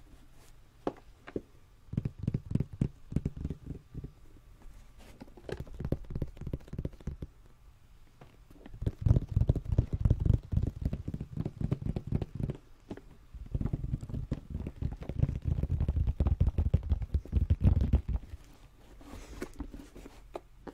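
Fingers tapping and scratching rapidly on a plastic first aid kit case held right at the microphone, in four runs of a few seconds each with quiet gaps between.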